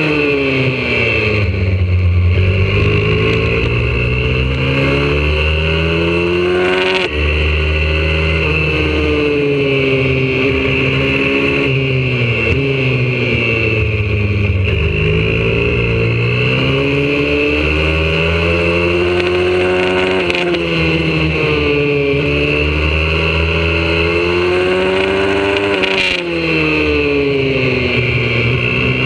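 Single-cylinder four-stroke engine of a YCF 125cc pit bike, heard close up on board, revving hard through a lap: the pitch climbs on each straight, drops with a quick break at each gear change, and falls away as the bike slows into corners.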